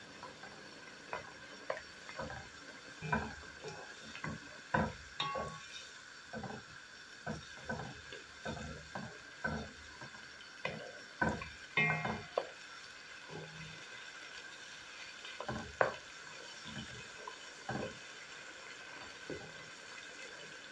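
Wooden spatula stirring a simmering vegetable and tomato-paste sauce in a granite-coated pan, with irregular scrapes and knocks against the pan about once or twice a second. The stirring thins out near the end.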